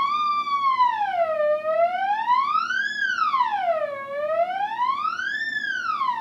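Theremin's continuous electronic tone gliding smoothly up and down in pitch, three slow swoops, as a hand moves toward and away from the pitch antenna.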